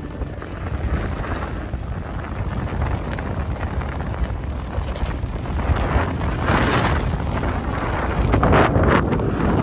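Wind buffeting the microphone of a rider sliding down a groomed ski slope, a steady low rumble. Over it, the hiss of edges scraping packed snow swells in surges in the later seconds.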